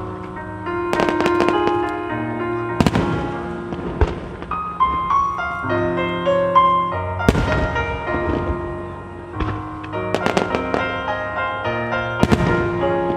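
Starmine fireworks display: shells bursting in irregular volleys over music played for the show, with a dense cluster of bursts about ten seconds in and more near the end.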